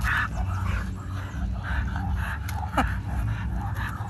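Two leashed pit bulls panting in quick breaths as they pull hard on the walk, with a short falling whine a little under three seconds in, over a steady low rumble.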